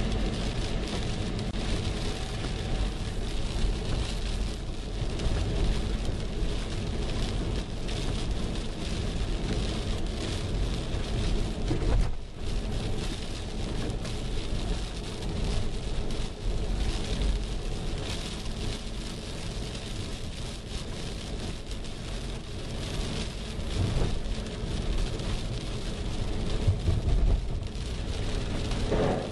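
Rain falling on a moving car's windshield and body, heard from inside the cabin, over the steady rumble of tyres on a wet road.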